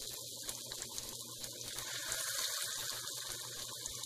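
Moong dal vadas deep-frying in hot oil: a steady sizzle of the bubbling oil.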